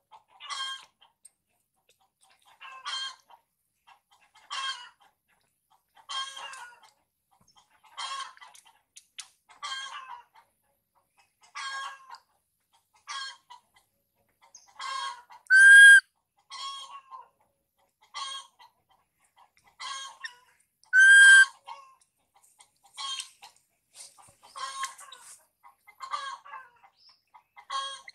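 Infant macaque crying: a string of short, high-pitched calls, one every second or two, with two louder cries in the middle.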